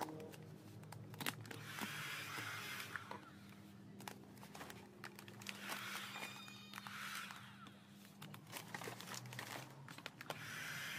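Matte black vinyl sticker film crinkling and rustling as it is pulled and smoothed by hand, with scattered small clicks.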